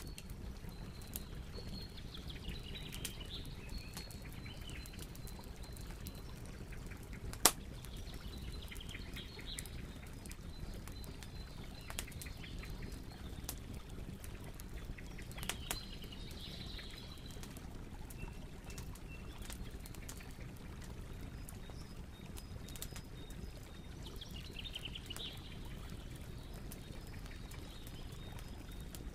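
Outdoor ambience: small birds chirping now and then over a steady low rumble, with a single sharp click about seven and a half seconds in.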